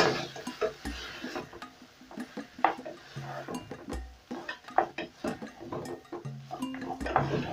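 A spoon stirring chunks of goat meat in a stainless steel pot, with irregular scrapes and knocks against the pot, over soft background music.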